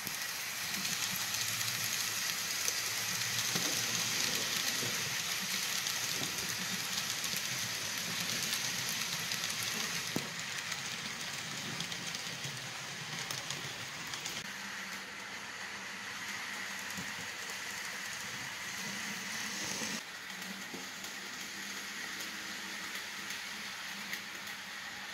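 Steam train running: a steady hiss with low rumble and rail clicks, which starts suddenly and drops a step in level about twenty seconds in.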